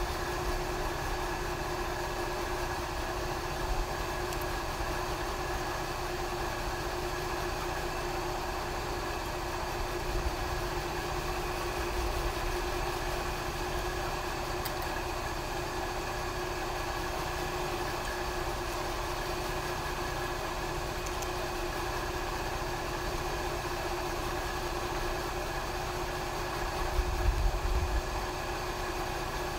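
Steady machine hum with a constant tone, running unchanged throughout, with a few soft low bumps; the loudest bump comes near the end.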